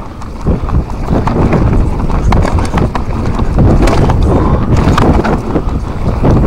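Mountain bike descending a rough, stony dirt singletrack: tyres rumbling over the ground and the bike rattling and knocking continuously over rocks and roots.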